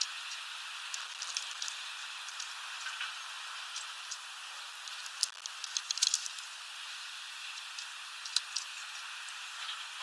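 Great tit pecking and tapping at sunflower seeds on a feeder tray: scattered sharp taps, with a quick run of them about six seconds in, over a steady hiss.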